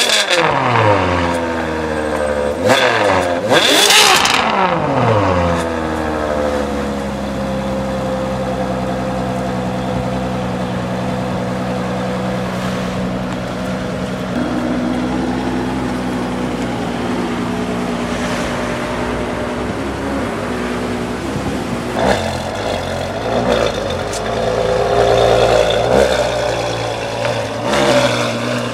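Ferrari 599 GTO's V12 revved hard while the car stands still, several sharp blips in the first few seconds, each falling quickly back. It then settles into a steady idle for a long stretch, with more short blips near the end.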